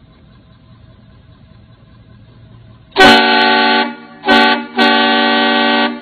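Newly fitted air horns on a Ford F-250 Super Duty pickup, fed from an onboard compressor and air tank, sounding three loud blasts starting about three seconds in: one of about a second, a short one, then another of about a second.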